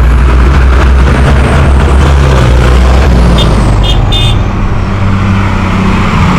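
Diesel tractor engines running close by as a line of tractors pulls past, a deep steady drone. About three and a half seconds in, three short high-pitched toots.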